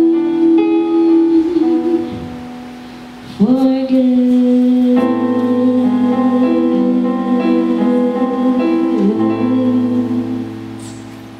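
A woman singing long held notes into a microphone over an instrumental accompaniment of sustained chords and low bass notes. Her voice slides up into a long note a few seconds in, and the final note fades out near the end.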